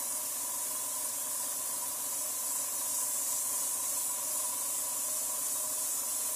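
Airbrush spray-tan gun spraying tanning solution onto a face: a steady, high hiss with a faint steady tone underneath.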